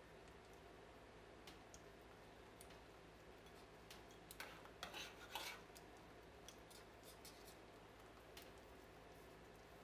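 A metal spoon clinking and scraping faintly against a stainless steel pan while it pushes wet yarn around in a dye bath, with a short run of louder clinks about four to five and a half seconds in; otherwise near silence.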